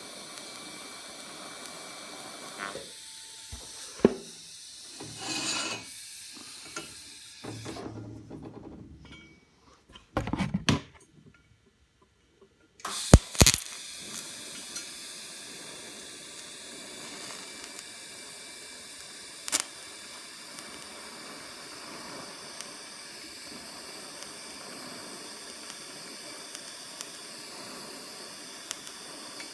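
TIG welding arc hissing steadily. In the first half the hiss is broken by a few knocks and a pause in which the arc goes quiet. A sharp click about thirteen seconds in is followed by a steady hiss for the rest.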